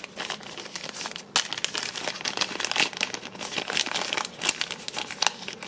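Crinkling packaging: a printed accessory pouch being lifted out of a cardboard box and handled, in a dense run of irregular crackles.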